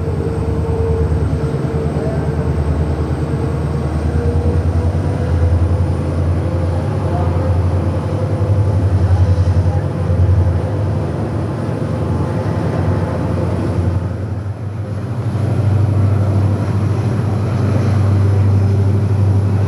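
A train under way behind a WDG4 diesel locomotive: a steady, low, pulsing drone of the engine and running gear, with a faint whine that rises slowly in pitch.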